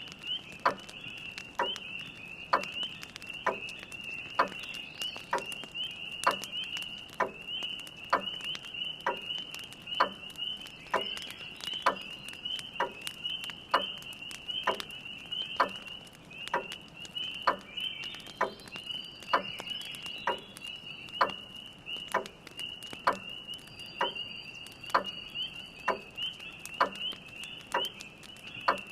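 Grandfather clock ticking steadily, about three ticks every two seconds, over an unbroken chorus of spring peepers peeping, with faint fire crackles.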